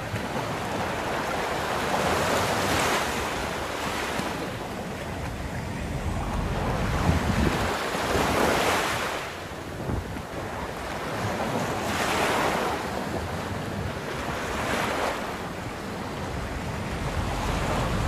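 Sea surf breaking on a sandy beach, the wash swelling and fading in a surge every few seconds, with wind rumbling on the microphone.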